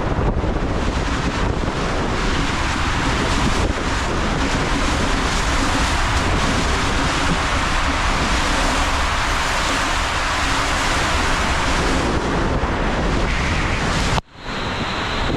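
Water rushing through a waterslide tube as a rider slides down it, a loud steady rush with wind on the microphone. It cuts off abruptly near the end and the rush starts again straight after.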